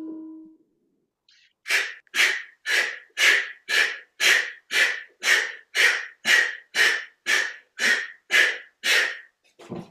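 A person exhaling sharply and rhythmically, about fifteen forceful breaths at roughly two a second, beginning a second and a half in: hard breathing that keeps time with the repetitions of a strenuous exercise.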